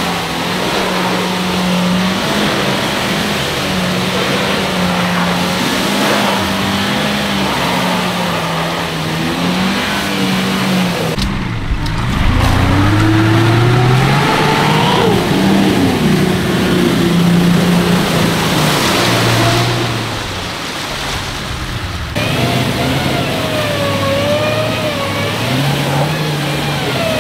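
Off-road 4x4's engine running and revving under load, its pitch rising and falling, with a hard rev climbing soon after the middle.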